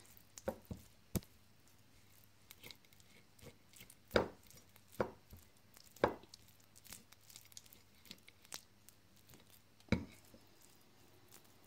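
Irregular soft taps and knocks of a silicone basting brush and a chicken leg against a ceramic plate as marinade is brushed onto the meat, a second or more apart with quiet between.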